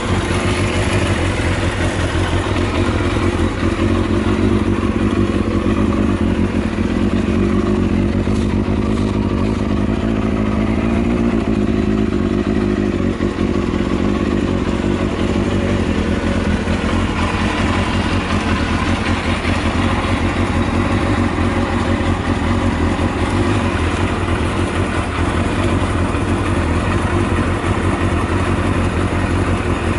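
Kawasaki Balius II's 250 cc inline-four running steadily through an aftermarket Outex titanium full exhaust system, with no large revs. The seller reports no abnormal noises.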